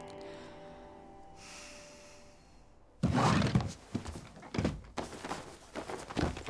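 The last notes of a guitar song die away. About three seconds in comes a sudden heavy thud, followed by a run of irregular softer thumps and knocks, like someone moving about and handling things in a small room.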